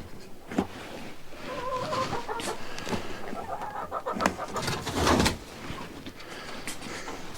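Laying hens clucking, with a short pitched call about a second and a half in, among scattered knocks and rustling. The loudest moment is a brief noisy clatter about five seconds in.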